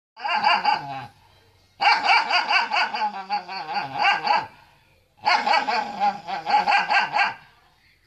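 A dog vocalizing in three long, wavering howl-like stretches, its pitch wobbling up and down, with short breaks between them.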